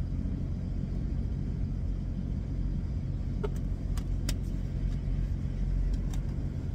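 Idling semi-truck engine heard from inside the cab: a steady low rumble and hum, with a few light clicks about halfway through.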